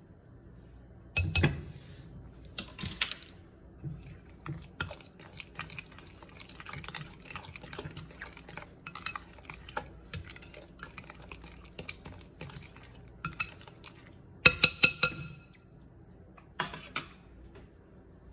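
Kitchen utensils clinking and scraping against dishes during food preparation, in many quick irregular strokes. A louder knock comes about a second in, and a cluster of ringing clinks comes near the end.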